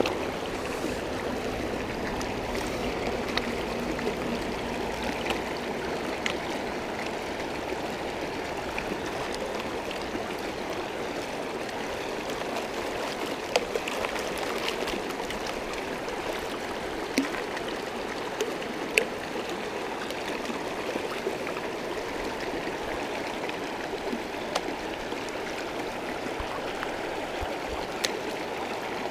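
Shallow rocky creek running steadily over stones, with the sloshing of a plastic gold pan being shaken and dipped in the water. A few sharp clicks of gravel in the pan stand out in the middle and near the end.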